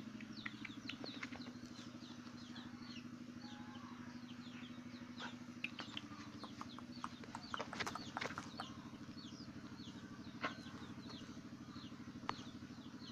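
Many small birds chirping, each chirp short, high and falling in pitch, over a steady low hum with a fast pulse. A few sharp clicks stand out around the middle.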